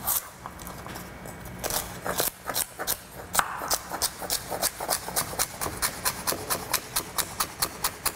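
Chef's knife chopping celery stalks on a wooden cutting board: sharp knocks of the blade through the stalk onto the wood, uneven at first, then a steady rhythm of about three cuts a second over the second half.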